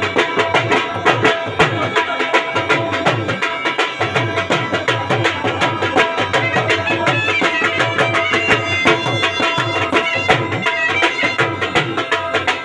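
Live dhamal music with drums played in rapid, even strokes under steady held melodic tones.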